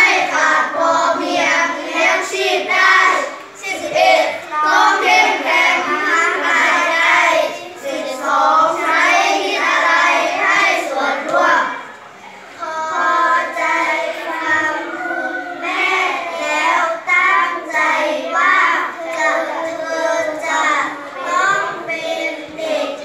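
A class of children reading a Thai text aloud in unison, in a sing-song chanting rhythm, with a short pause about halfway through.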